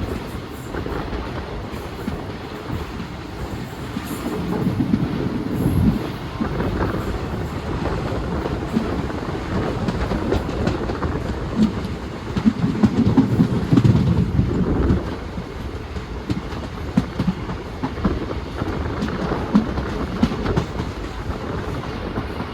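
Indian Railways passenger train running on the track: a steady rumble of the coaches with the wheels clacking over the rail joints, swelling louder now and then.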